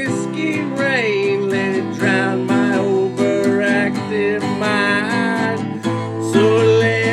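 Country song on strummed acoustic guitar, with a melody line that slides up and down in pitch over the chords and no sung words.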